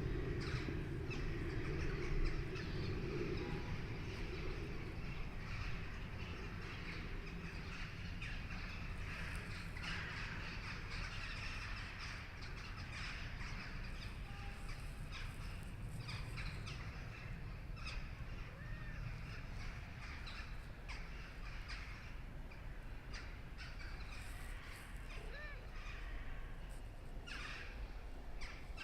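Cat making soft chirping calls, a few short faint chirps mostly in the second half, over steady low background noise and scattered light clicks.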